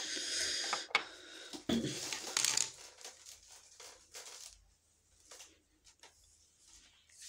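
Rustling and crinkling handling noise with a few sharp clicks, loudest over the first three seconds, then fainter scattered rustles and taps.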